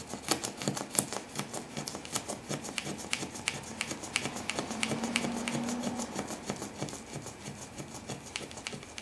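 Razor blade scraping cured windshield-repair resin off the glass over the rock chip: a quick run of sharp, scratchy clicks, several a second. The UV-cured resin has set hard.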